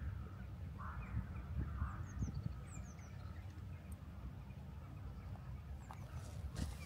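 Outdoor ambience at a pond: a steady low wind rumble on the microphone with a few faint, short bird chirps, and a few crunching steps on gravel near the end.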